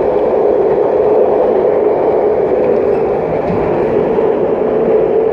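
Puyuma Express (TEMU2000 tilting electric multiple unit) heard from the gangway between two cars while running: a loud, steady rumble of wheels and track with a steady drone underneath.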